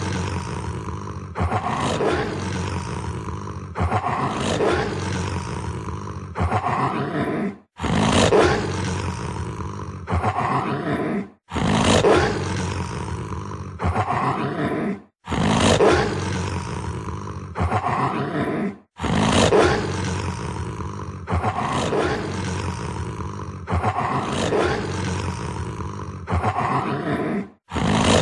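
Sound-effect recording of a large wild animal roaring, several calls per pass, looped over and over with a brief silent gap about every four seconds.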